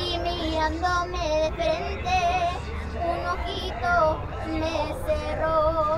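A girl singing a melody, her held notes wavering with vibrato, over a steady low background rumble.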